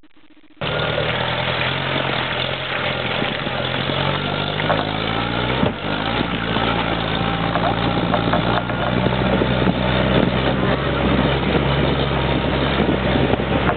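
Jeep engine running under load while driving over a rough, muddy forest track, with scattered knocks and jolts from the bumps. The engine pitch climbs for a moment around four to five seconds in, and a sharp knock comes just after.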